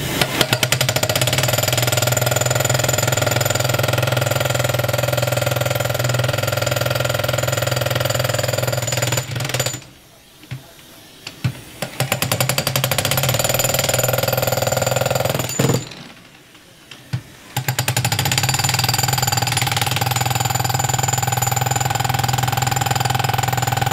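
Milwaukee MX Fuel cordless breaker, a battery-powered jackhammer, hammering into concrete slabs with rapid, steady blows. It stops twice for a couple of seconds, then starts hammering again.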